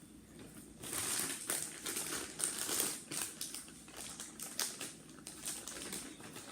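A shipping package being torn open and handled by hand: crinkling and crackling with many sharp clicks, loudest in the first few seconds and then more scattered.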